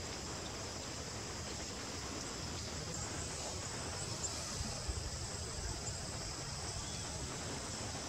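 A steady chorus of insects, one continuous high-pitched shrill trill.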